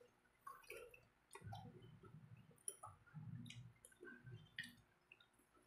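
Faint, scattered clicks and scrapes of a spoon in a plastic cup, with soft low mouth sounds of eating between them.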